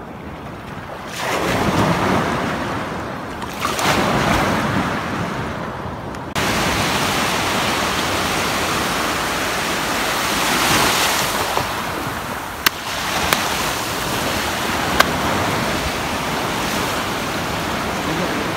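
Surf washing on a beach with wind on the microphone, in slow swells that jump abruptly louder about six seconds in. A few sharp clicks in the second half.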